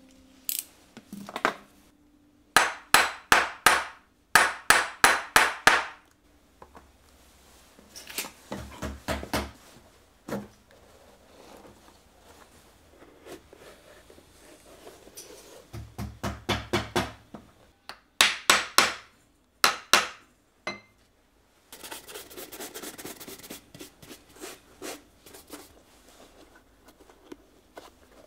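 Shoemaker's hammer striking, in runs of four or five quick, sharp blows with pauses between. A stretch of faster, softer tapping follows near the end.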